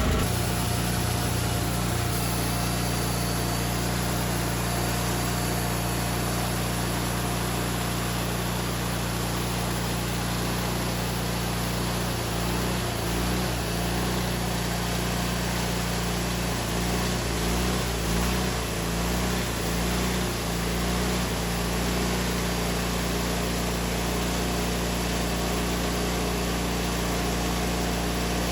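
An engine running steadily at a constant speed, its note wavering briefly about halfway through.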